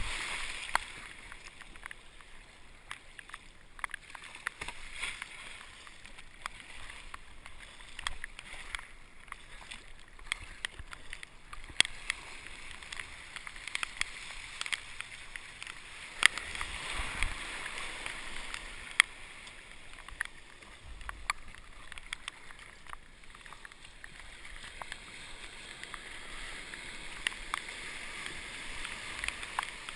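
Sea kayak surfing breaking boat-wake waves: a steady rush of foaming water around the hull, with frequent sharp splashes and taps. The rush swells louder a little past halfway.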